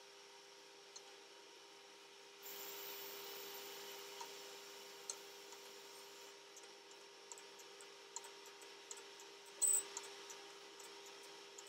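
Egg mixture sizzling faintly in a nonstick frying pan while a silicone spatula stirs and scrapes it. The sizzle comes up about two seconds in, with scattered light clicks of the spatula against the pan and one louder tap near the end, over a steady low hum.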